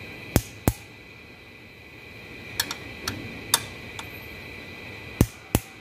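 Click-type torque wrench clicking as each cylinder head bolt reaches the preset torque: two sharp clicks about a third of a second apart just after the start and again near the end, with lighter ticks in between.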